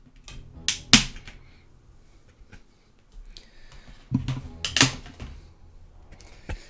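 Sharp plastic clicks and snaps from discs and a clear plastic Blu-ray case tray being handled: a couple about a second in, a quick cluster around four to five seconds, and one more near the end.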